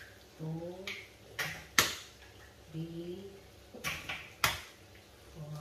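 Eggs cracked one after another on the rim of a bowl: sharp knocks of shell on the rim, the loudest about two seconds in and again about four and a half seconds in. A low voice murmurs briefly between them.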